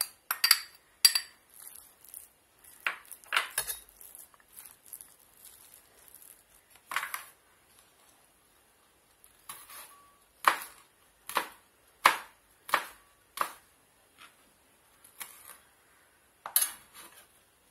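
A steel spoon clinking and scraping against a glass bowl while a minced meat mixture is stirred. From about the middle it gives way to a kitchen knife chopping green chillies on a wooden board: sharp knocks, roughly one a second.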